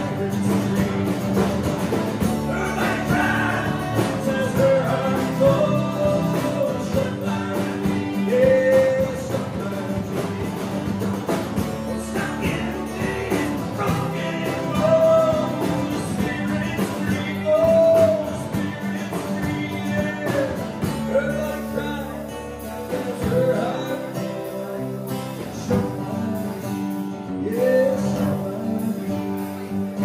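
A live rock band playing a song, with a man singing lead over drums, electric guitar and acoustic guitars.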